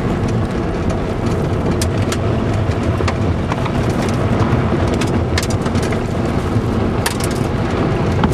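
Car driving, a steady low rumble from the engine and road, with scattered clicks and crackles throughout. The owner puts the car's poor sound down to loose plastic underneath.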